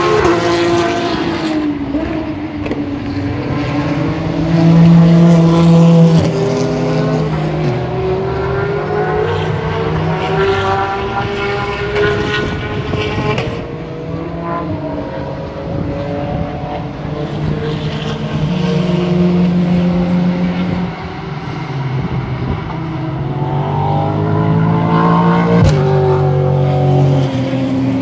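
Race car engines running hard as several cars pass one after another on the circuit. The pitch climbs and then drops sharply several times, and the loudest pass comes about five seconds in.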